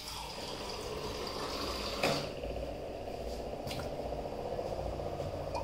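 Water running from a kitchen tap into a steel tumbler, a steady rush with one sharp knock about two seconds in.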